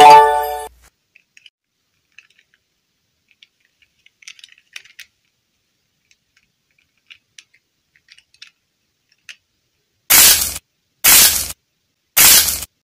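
Faint scattered clicks and taps of small plastic dolls and play dough being handled. A loud pitched tone fades out at the very start, and near the end come three short, loud hissing noise bursts about a second apart.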